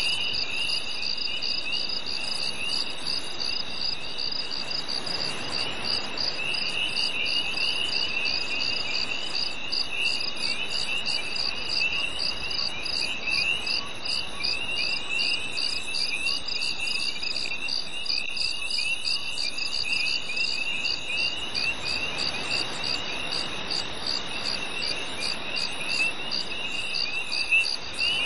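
Crickets chirping in a steady summer night chorus: a high, evenly repeating pulse over a second, lower layer of scratchy chirps, with a faint even hiss beneath.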